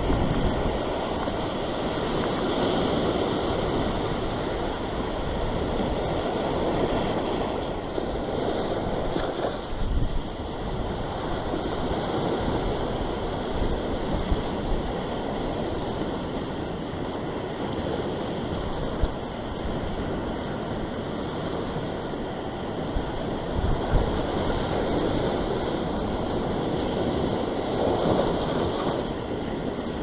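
Sea surf breaking and washing over a rock platform, swelling and easing every few seconds, with wind buffeting the microphone.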